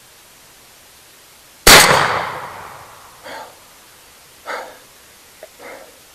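A single shotgun blast about two seconds in, very loud and sudden, with a short echoing tail: a turkey hunter firing at a tom. A few short, much fainter sounds follow.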